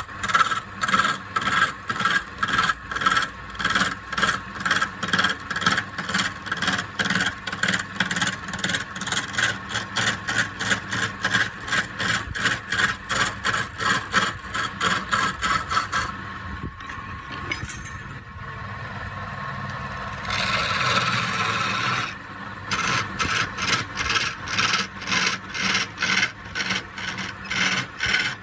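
A hand tool stroked back and forth across palm wood, rasping at about three strokes a second. About two-thirds of the way in the strokes stop for several seconds, with steadier rubbing in between, then start again.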